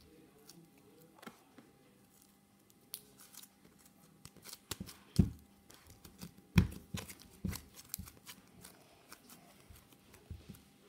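Slime being squeezed and pressed by hand against a wooden table: irregular small clicks and pops, with two louder thumps about five and six and a half seconds in.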